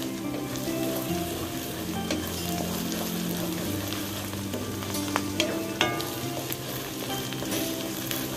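Sliced onions and whole spices sizzling in hot oil in a metal karahi, stirred with a wooden spatula, with a few sharp knocks of the spatula against the pan about five to six seconds in. Soft background music plays underneath.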